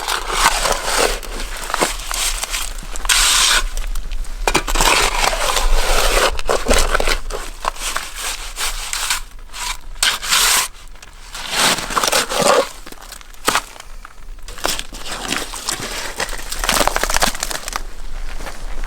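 Irregular rubbing, crunching and scraping as an AR-15 rifle is pushed into and worked through thick mud.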